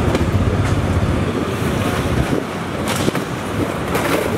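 Heavy vehicle engine running with a steady low rumble, with two sharp knocks in the last second and a half as scrap sheet metal is handled on the truck bed.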